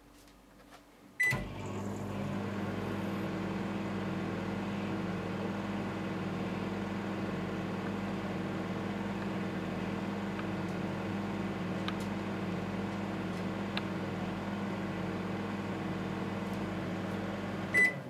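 LG microwave oven: a key beep about a second in, then the oven running with a steady hum for about sixteen seconds, and another key beep near the end as it is switched off by hand.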